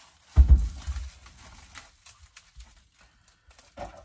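A heavy thump about half a second in as the plastic-wrapped Suzuki DR-Z400 motorcycle frame is set down on a metal-topped workbench, followed by a few lighter knocks. After that comes faint rustling of its plastic wrapping and a small knock near the end.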